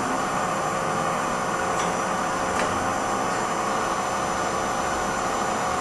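1983 Matsuura MC-760-V2 CNC vertical machining center running its demonstration program: a steady machine hum with several held whining tones and a few faint clicks.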